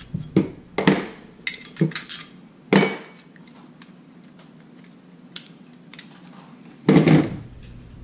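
Metal deadbolt parts clinking and knocking as they are handled and pulled apart by hand: a run of sharp clicks and clinks over the first three seconds, a few faint ticks, then a louder knock about seven seconds in.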